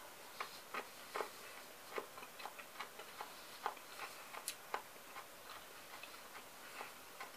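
Faint, irregular crisp crunches of sliced fresh cucumber being chewed, two or three small clicks a second.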